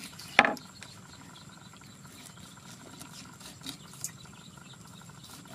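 A short, loud animal cry about half a second in, over faint taps and scrapes of a cleaver cutting fish on a wooden board.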